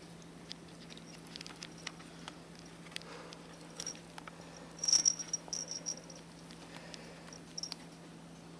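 Soft scratchy clicks and rustles from a young ferret rolling and shuffling on fleece bedding, scattered through, with a louder cluster about five seconds in.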